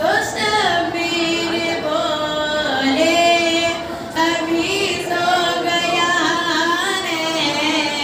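A woman singing a naat unaccompanied, with long held notes and wavering ornaments.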